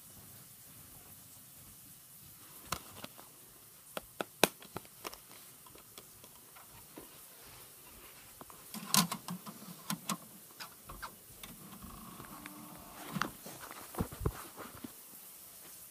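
Handling noise: scattered clicks, knocks and rubbing as things are picked up and moved about, with the sharpest knocks about four and a half and nine seconds in.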